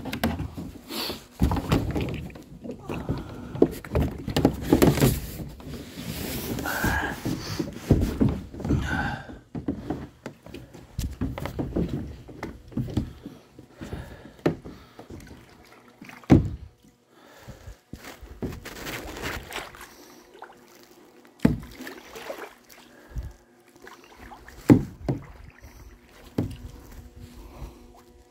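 A small boat on the water: irregular knocks and bumps on the hull with water noise, busy for the first several seconds, then a few separate thumps.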